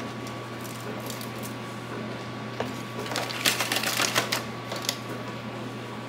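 Light clicking and tapping of kitchen utensils, a few taps about a second in and a quick run of sharp clicks from about three to four and a half seconds, over a steady low hum.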